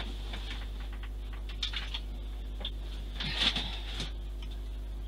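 A steady low hum with a few faint taps and rustles of small things being handled, the loudest cluster about three and a half seconds in.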